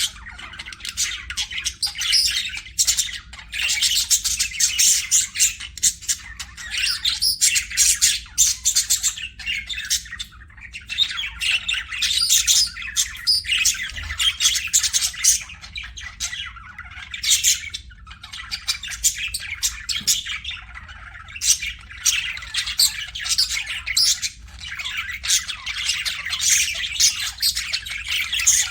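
Pet budgerigars chattering non-stop, a dense run of quick chirps and harsh squawks with only brief pauses.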